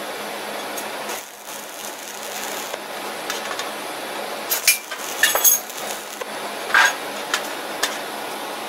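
Electric arc welding a steel nut onto square steel bar: a steady crackling hiss from the arc, with a few sharp, louder pops past the middle.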